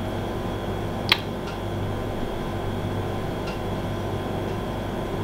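Steady low background hum, like a running appliance, with one brief click about a second in.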